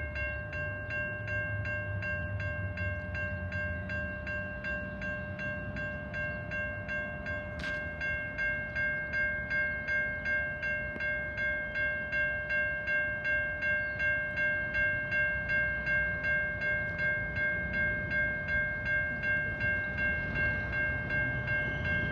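Level crossing warning bell ringing on a steady regular beat as a freight train approaches. Beneath it runs the low rumble of the oncoming diesel freight train, growing near the end.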